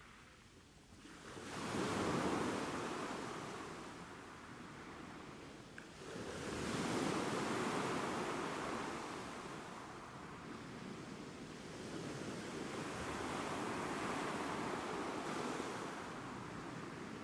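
Ocean waves breaking and washing ashore, with swells that rise and fade: a surge about two seconds in, another near seven seconds, and a longer one later on.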